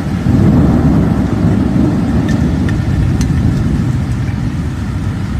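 Strong storm wind buffeting the microphone: a heavy, low rumble that swells about a third of a second in and keeps going, with a few faint ticks partway through.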